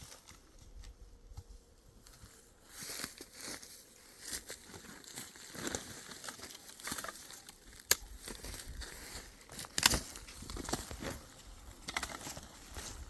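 Dry brush and twigs rustling and crackling irregularly, with sharp snaps about eight and ten seconds in.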